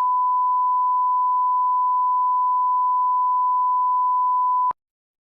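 Steady electronic beep: one pure, unwavering high tone held for about five seconds, cutting off abruptly near the end.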